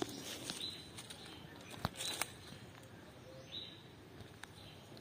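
Faint short bird chirps, repeating about every second and a half, with scattered small clicks and knocks; the sharpest click comes about two seconds in.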